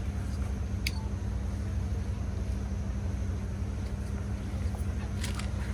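Steady low hum and rumble, with one sharp click about a second in and a few faint clicks near the end.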